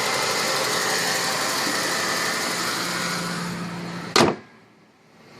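1997 Ford Falcon EL's engine idling steadily, warmed up after a cold start. About four seconds in there is a single sharp bang, and after it the engine noise drops away to much quieter.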